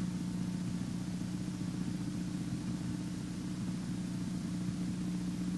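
Steady low hum over a faint even hiss: background noise on the meeting's audio line, unchanging throughout.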